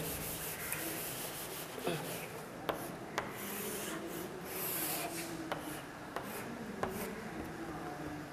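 Faint rubbing and scraping with scattered light clicks and taps, from a diagram being changed by hand.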